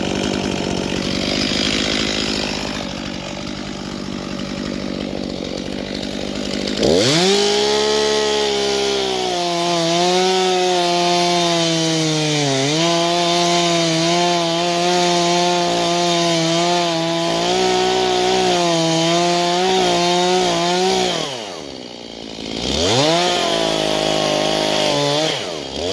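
Old two-stroke chainsaw running at high revs, cutting elderberry wood. About seven seconds in its pitch drops and climbs back up, it dips briefly once under load, and near the end it falls twice as the throttle is let off and opened again.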